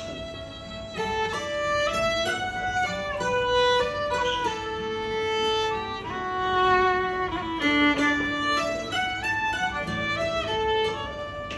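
Fiddle playing a flowing melody of stepped, sustained bowed notes, with acoustic guitar strummed softly underneath.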